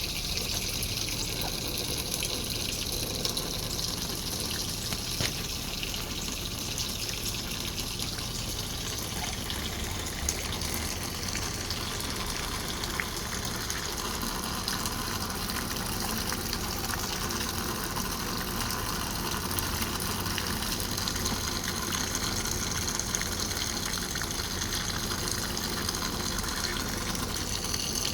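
Steady gush of running water, like water pouring or being pumped into a pool, with small splashes and ticks scattered through it.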